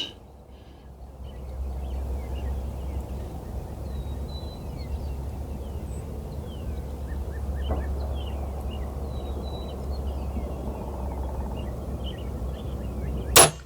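TenPoint VenomX crossbow fired once near the end, a single sharp snap. Before it, small birds chirp over a low, steady rumble.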